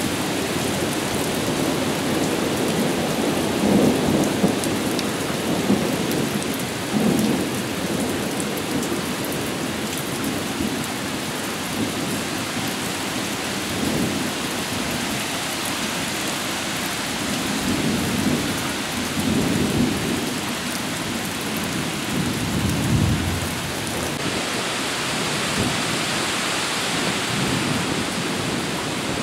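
Torrential thunderstorm rain hissing steadily, with rolling thunder rumbling several times over it. The rumbles are low and drawn out, with no sharp crack; the strongest come a few seconds in and again near the end.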